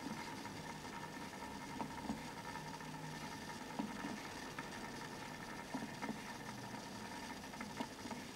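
Small electric motor of a rotating display turntable humming steadily, with a few faint scattered clicks.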